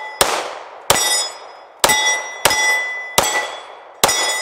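Glock 21 Gen 4 .45 ACP pistol firing six shots at a slow, steady pace, a little under a second apart. Each shot is followed by the ringing of a steel plate target being hit.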